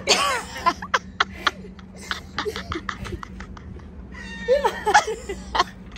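Women squealing and laughing while swinging: high rising-and-falling shrieks at the start and again about four and a half seconds in, with bursts of laughter in between.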